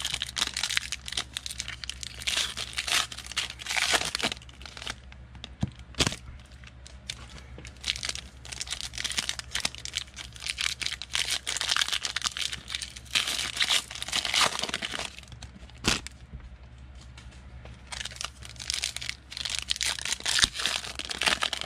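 Foil-plastic wrapper of a football trading-card pack crinkling and tearing as it is worked open by hand, in repeated bursts with a few sharp clicks.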